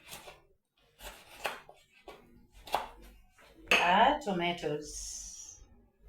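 A few separate clinks and knocks of kitchen utensils and dishes, spread over the first three seconds.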